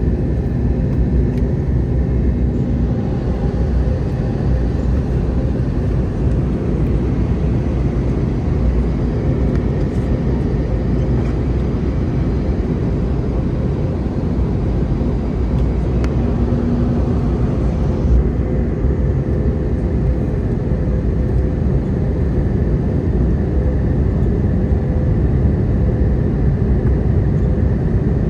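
Steady cabin noise of an Airbus A320neo in flight: a loud low rumble of airflow and engine noise with a faint steady hum. A brighter hiss joins for a stretch in the first half.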